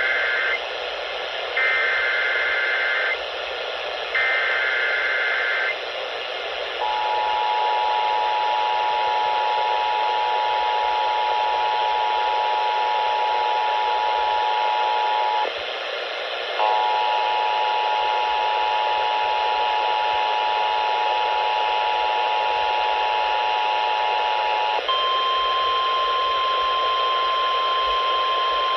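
Emergency Alert System tones over AM radio, with constant static hiss. Two short screeching SAME header data bursts come first, ending the header. Then the two-tone EAS attention signal holds for about nine seconds, breaks off briefly and resumes, and about 25 seconds in it gives way to a single steady tone.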